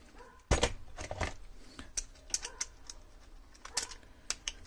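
Plastic clicks and knocks of a snap-on accessory being fitted onto the head of a Parkside PAS 4 C4 cordless screwdriver. There is a sharp click about half a second in, then scattered lighter clicks.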